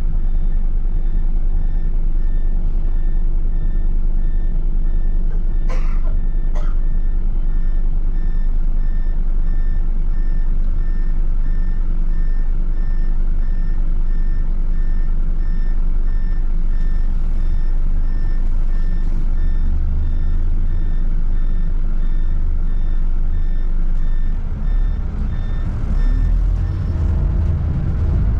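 A bus's reversing alarm beeping steadily, about twice a second, over the low running of its diesel engine. Two brief sharp sounds come about six seconds in. The beeping stops a couple of seconds before the end, and the engine note changes.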